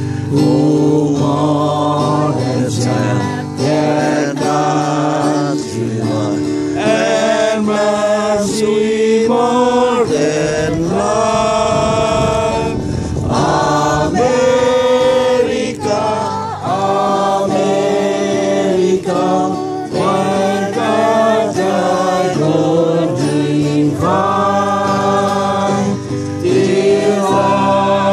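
Choral music: a group of voices singing held notes in a gospel style over a steady low accompaniment.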